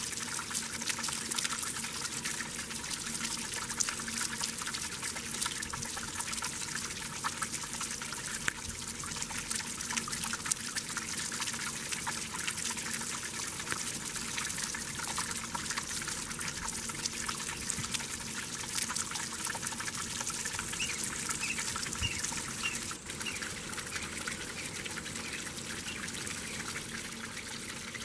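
Water splashing and trickling steadily, a continuous rush dotted with many small splashes.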